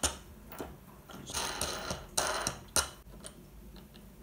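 Wing nuts being handled and threaded by hand onto the ends of bolts: small metallic clicks and short scraping rasps, with a sharp click a little under three seconds in and fainter ticks after.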